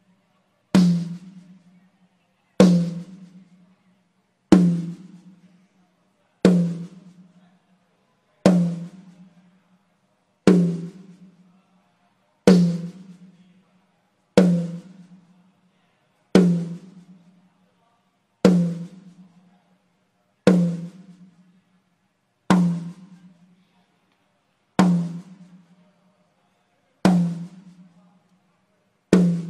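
A single drum of a drum kit struck once about every two seconds for a soundcheck, each sharp hit ringing out and dying away within about a second. The drum is heard through the PA while its channel's EQ is being set on a Midas M32R digital mixer.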